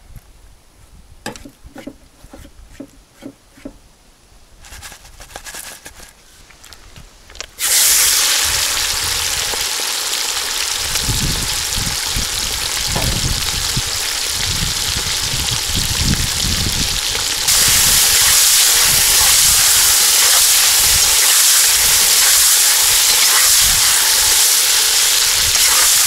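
Chicken pieces sizzling in hot oil in a kazan, the hiss starting suddenly about eight seconds in and holding steady, a notch louder past halfway. Before it, a few light clicks and knocks of handling.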